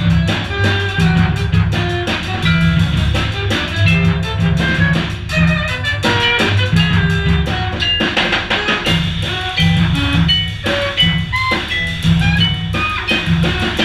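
Small jazz group playing a tune: vibraphone notes over a walking double bass and a drum kit, with alto saxophone in the band, all inside a small elevator car.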